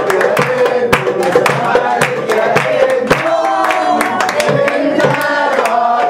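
A group of people singing together, with hand clapping throughout.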